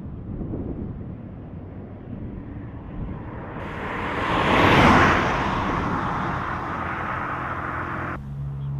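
A car passing at speed: the noise of its tyres and engine swells to a peak about halfway through, then fades away.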